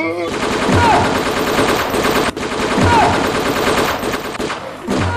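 Rapid machine-gun fire, a dense run of shots without a break, with a short falling tone that comes back about every two seconds.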